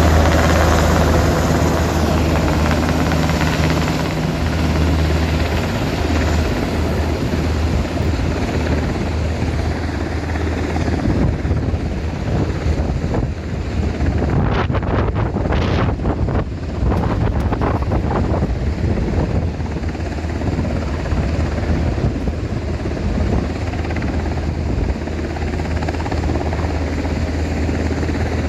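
Rescue helicopter's rotor and turbine running loudly and steadily at close range, a little louder at the start.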